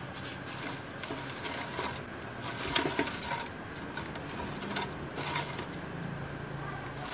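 Electric fan running with a steady hum, blowing on frozen sugarcane juice, with scattered light clicks and knocks, the loudest a little under three seconds in.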